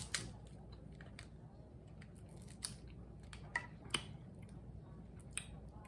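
Snow crab leg shells cracked and snapped apart by hand: a handful of sharp cracks, the loudest just after the start and two close together around three and a half to four seconds in.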